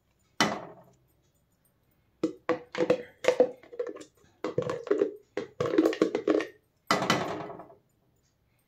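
Metal spoon and slotted spatula knocking and scraping against an aluminium kadhai as lumps of ghee are dropped into roasting flour. The knocks come in several quick clusters with short gaps between.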